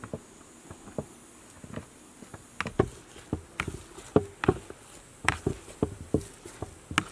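Metal potato masher pressing boiled potatoes in a plastic bowl, with irregular clicks and knocks as it strikes the bowl, sparse at first and coming two or three a second from about halfway in.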